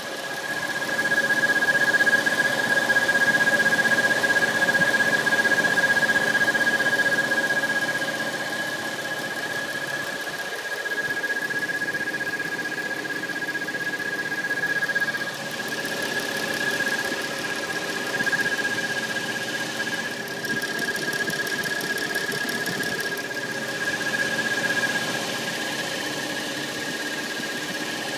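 Steady high-pitched squeal, a constant whistle over the engine's running hum, from a 2013 Dodge Challenger SXT's water pump: a loose seal in the failing pump makes the whistle.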